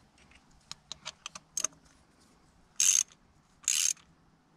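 Ratchet wrench on a spark plug socket extension: a few light metal clicks, then two short bursts of ratchet clicking as the handle is swung back, running a new spark plug into the cylinder head.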